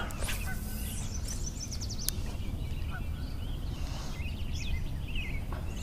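Birds chirping and calling around a lake over a steady low rumble, with a single sharp click about two seconds in.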